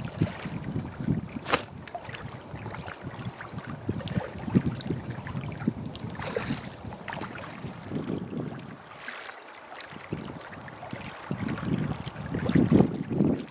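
Wind buffeting the microphone and small waves lapping against the shore, with gusts swelling loudest near the end. About a second and a half in comes one sharp snap, the release of a bait catapult.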